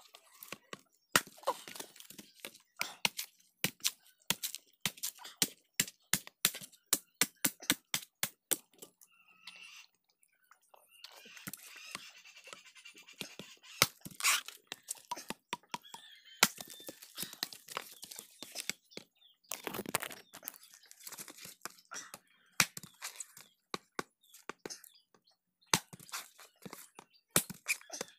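Irregular sharp knocks and cracks with stretches of rustling and tearing, from a green coconut being struck and its husk torn open by hand.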